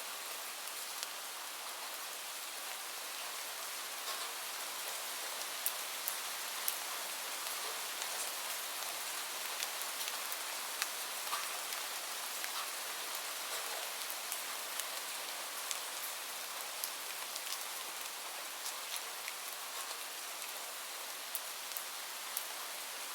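Steady rain falling, with scattered single drops ticking sharply through it.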